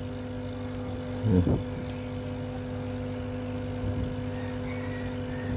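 Steady low mechanical hum that holds one pitch, with a short vocal sound about a second and a half in.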